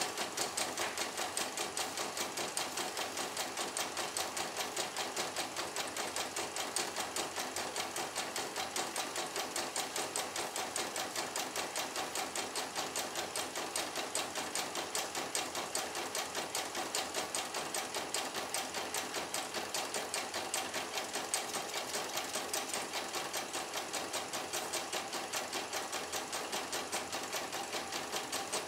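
A CNY E900 portable computerized embroidery machine is stitching a design, its needle going up and down in a fast, even rhythm while the hoop carriage moves the fabric. It is a test run after repair and routine service.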